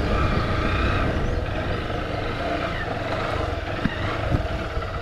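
Motorcycle on the move: a steady low engine and road rumble, with two short knocks near the end.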